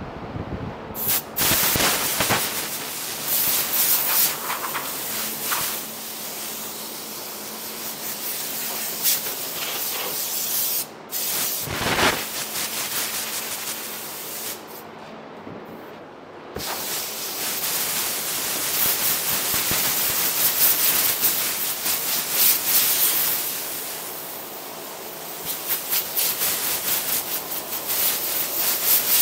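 Compressed-air blow gun hissing as it blows down a bare-metal truck sleeper, in long blasts with a couple of short breaks.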